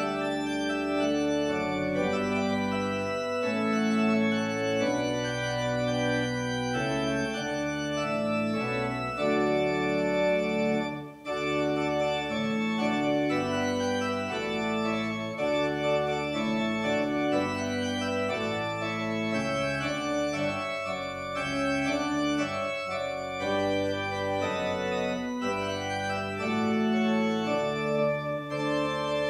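Organ playing slow, sustained chords as a postlude after the benediction, with a brief break about eleven seconds in.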